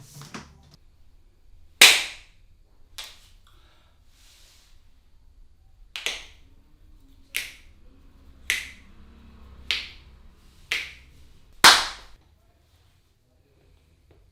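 Hands slapping on skin in a barber's massage: about nine sharp smacks at uneven intervals of a second or so, the loudest about two seconds in and again near the end.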